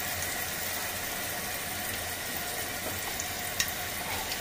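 Carrot and chive pancake batter sizzling in hot oil in a frying pan, a steady hiss as it starts to fry. A light tap of chopsticks against the glass batter bowl sounds once near the end.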